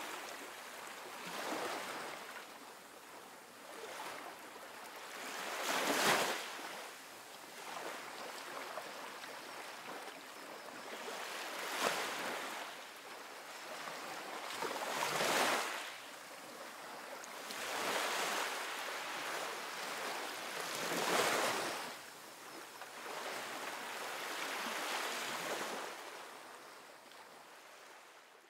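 Ocean waves: a rushing surf noise that swells and fades every few seconds as waves wash in and draw back.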